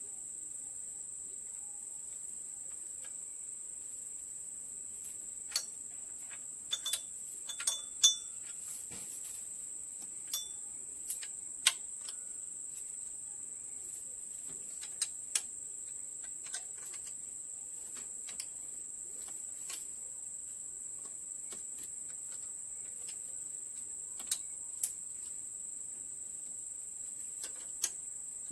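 A steady high-pitched insect drone, with irregular sharp clicks and taps of hand tools on metal engine parts, the loudest about eight and twelve seconds in.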